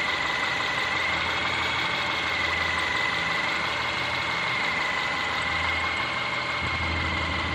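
Subaru Forester SG5's EJ25 2.5-litre flat-four engine idling with a knock, under a steady high whine.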